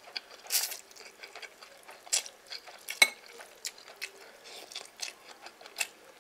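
Metal spoon and chopsticks working noodles in a ceramic bowl: scattered small clicks and scrapes, with one sharp clink of the spoon against the bowl about three seconds in.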